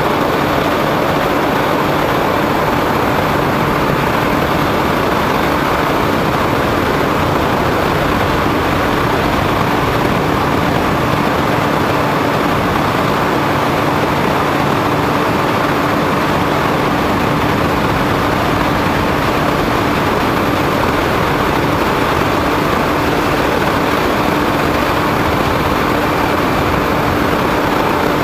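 Steady drone of an RC foam airplane's motor and propeller in cruising flight, mixed with wind rush over the onboard camera's microphone. A steady hum holds one pitch throughout, with no change in power.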